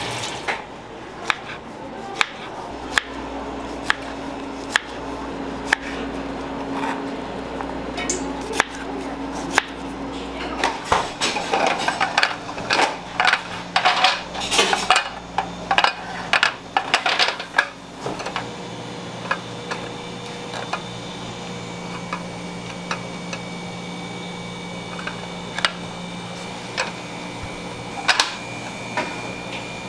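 Clear plastic cube cake containers clicking and clattering as they are handled and set down on a steel work counter, with a fast run of clatter in the middle. A steady kitchen equipment hum runs underneath.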